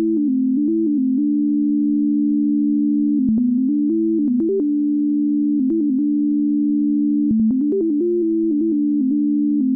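Biosonified heartbeat data played as synthesized sine tones: a steady low tone with a second tone above it that mostly holds but in several short clusters steps up and down between a few nearby pitches, with small clicks at each change.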